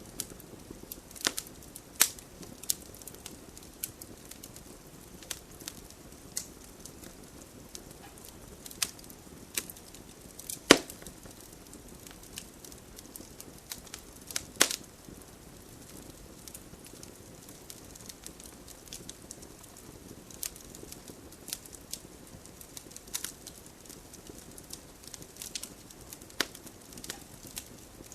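Wood campfire burning: a steady low hiss of flames with irregular sharp crackles and pops, the loudest pop about ten seconds in and another near the middle.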